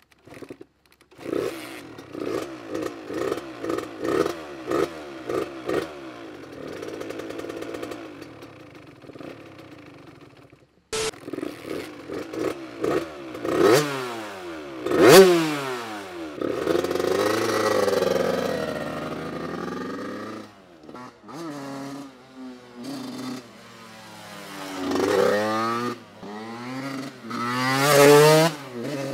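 Suzuki RM85 two-stroke dirt bike engine, a 2009 single-cylinder 85cc, being blipped with quick bursts of throttle, about two a second. Then it revs up and down as the bike rides off and accelerates, the pitch climbing in repeated rising sweeps as it passes close near the end.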